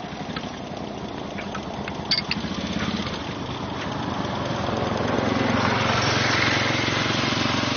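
Small engine of a motorized three-wheeler cargo tricycle running with a rapid, even beat, growing steadily louder. A few light clicks about two seconds in.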